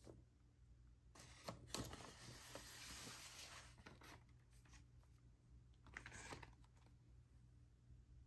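Faint papery rustle of a vinyl record's sleeve sliding into a cardboard album jacket, lasting about three seconds from about a second in, with a few light ticks near its start, then a shorter rustle about six seconds in.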